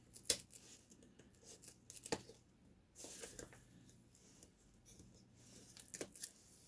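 Packaging being opened for an unboxing: faint tearing and rustling with a few sharp clicks, and a brief louder rustle about three seconds in.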